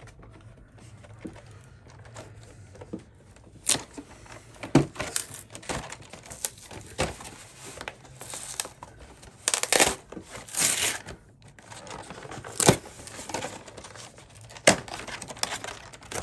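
A cardboard trading-card collection box being opened by hand: irregular rustling, tearing and scraping of the paperboard and packaging, broken by scattered sharp snaps.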